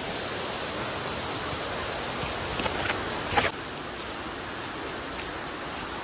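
Steady, even outdoor rushing noise, with a faint knock about two and a half seconds in and a sharper, louder knock about a second later.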